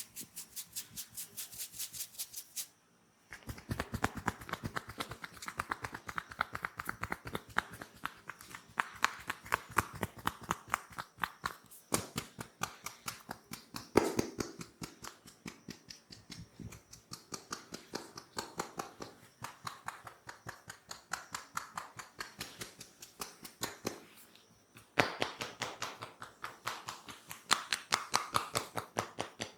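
Massage tapping: hands striking and patting rhythmically on the body in quick, even strokes, about four a second, with two brief pauses.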